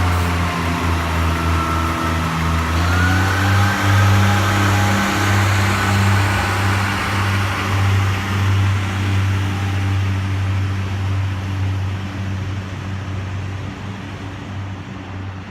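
Two coupled Class 143 Pacer diesel multiple units pulling away from a station. The engines run with a strong steady hum, and a tone rises in pitch a few seconds in as they pick up speed. The sound fades toward the end as the train draws away.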